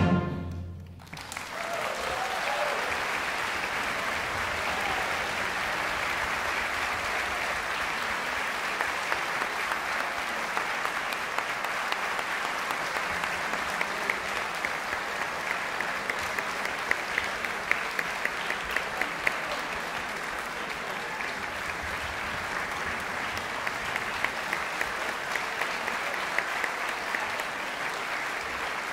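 An orchestra's last chord rings out and dies away within the first second, then an audience breaks into steady applause that holds for the rest of the time.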